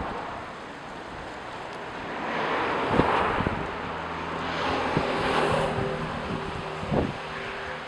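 Ocean surf washing in, swelling twice, with wind buffeting the microphone in low thumps.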